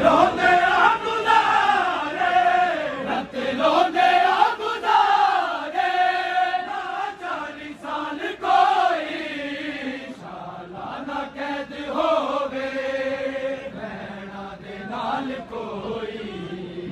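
Men's voices chanting a Punjabi noha, a Shia mourning lament, in long sung lines whose pitch bends up and down; it grows a little quieter about halfway through.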